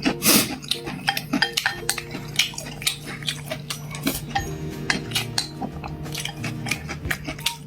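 Dishes and eating utensils clicking and clinking in many quick, irregular knocks during a meal, over steady low background tones.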